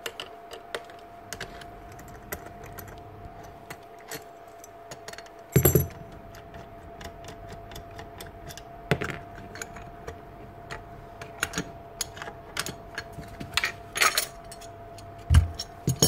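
Small metallic clicks and clinks of a hand tool working the blade-clamp bolts and blade of a Makita 1125 planer's cutter head, with a few louder knocks as parts are handled and set down. A faint steady hum runs underneath.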